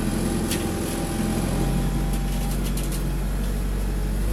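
Ikarus 405 city bus's diesel engine running, heard from inside the passenger cabin, with its low drone changing about one and a half seconds in. A few light clicks and rattles come through, one about half a second in and a cluster near the middle.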